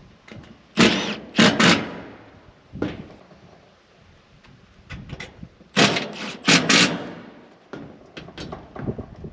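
Cordless impact wrench run in short bursts: three bursts about a second in and three more about five seconds later, driving fasteners for solar panel mounting on a metal roof.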